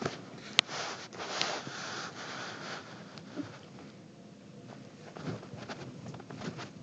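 Handling noise from a laptop webcam being moved and repositioned: a sharp click about half a second in, then rustling and scraping that fades to faint shuffling with a few soft knocks.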